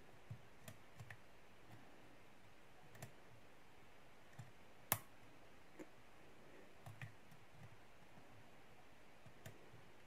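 Faint, scattered clicks of a hook pick and tension wrench working the pin tumblers of a Lockwood 334C45 padlock, with one sharper click about five seconds in.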